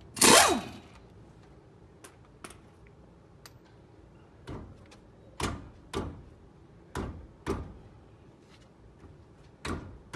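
A short burst from an impact wrench spinning off a lug nut, winding down in pitch, then a series of irregular metallic clunks and knocks as the Chevy Express 3500's front steel wheel is shaken and wiggled to free it from the hub.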